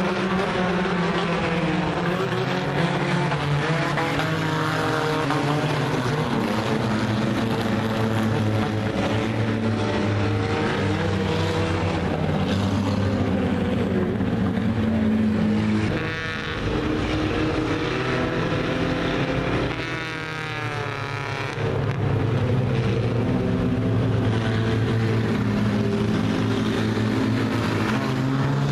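Several compact stock cars racing on a dirt oval, their engines running together and rising and falling in pitch as they accelerate and lift around the track. The sound dips briefly twice about halfway through.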